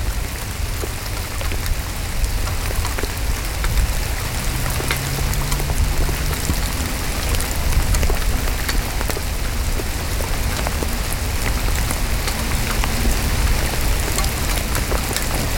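Heavy rain falling steadily, with many sharp drop ticks from rain striking the plastic bag over the camera, over a low rumble.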